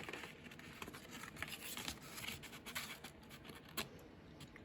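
Soft paper rustling and handling noise, with scattered small clicks and taps, as a paper ruler is held against a notebook to measure it.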